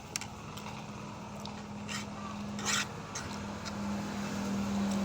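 A person eating noodles: a few soft clicks and one brief, louder noise about two and a half seconds in, over a steady low hum that grows a little louder in the second half.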